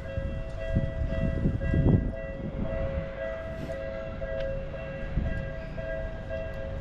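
Japanese railway level-crossing alarm ringing its steady, regularly repeating electronic tone, with a low rumble underneath that swells about two seconds in.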